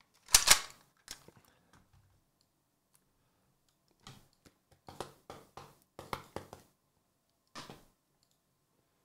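Shrink-wrapped cardboard trading-card hobby boxes being handled: scattered sharp taps and clicks, a loud pair at the start, a quick run of them about five to six and a half seconds in, and one more near the end.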